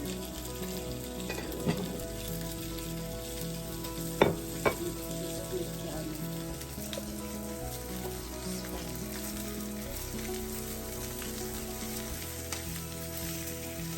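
Food sizzling steadily as it fries in a pan, with a few sharp utensil knocks against the pan, two close together about four seconds in.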